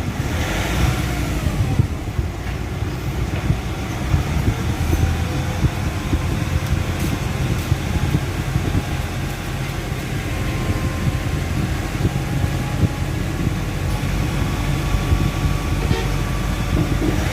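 Nissan Navara pickup driving, heard from inside the cab: a steady low engine and road rumble with faint whining tones above it.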